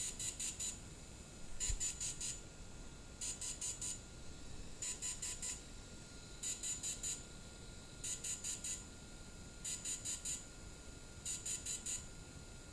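DJI Phantom 3 gimbal motors beeping a repeating pattern of four quick high-pitched beeps ("da-da-da-da") about every second and a half, the sign that a battery firmware update is still in progress.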